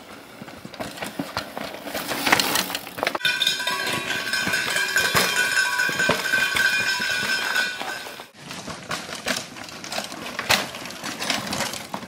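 Downhill mountain bikes passing over a rocky dirt trail, rattling and clattering with repeated sharp knocks. From about three to eight seconds in, a steady high ringing at several pitches sits over the clatter, then drops away abruptly.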